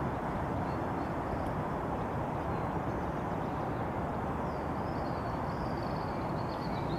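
Steady wind noise rushing over the microphone.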